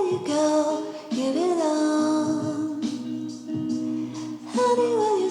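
Background music: a song with a singing voice carrying a melody that slides between held notes.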